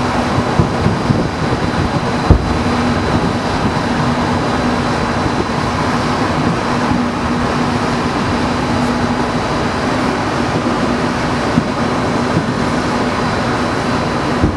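Distant fireworks shells bursting in scattered sharp booms, the loudest about two seconds in, over a steady rushing background noise with a faint hum.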